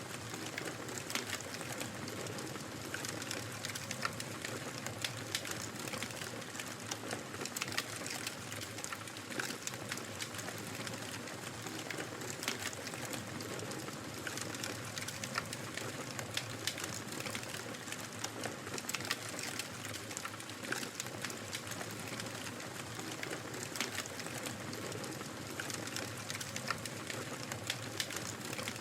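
Wood fire crackling in a fireplace: a steady hiss with many irregular sharp pops and snaps.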